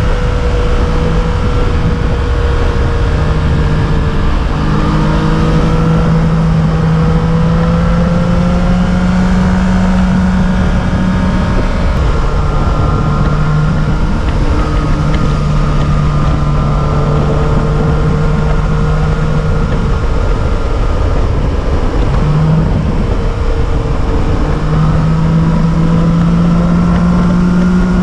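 A motor vehicle driving steadily: its engine hums with a note that drifts slowly up and down, over heavy road and wind noise.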